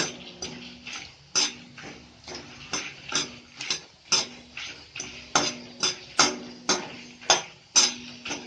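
Whole spices (dried red chillies, coriander seeds) being dry-roasted and stirred in a kadai: a utensil knocks and scrapes against the pan about twice a second, each stroke with a short metallic ring.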